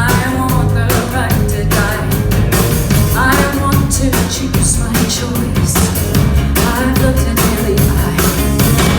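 Live rock band playing a song, with a woman singing lead over drums, bass and guitar.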